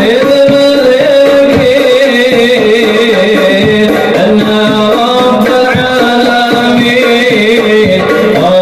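Hadroh music: group sholawat singing in wavering, ornamented lines over a steady rhythm of frame drums.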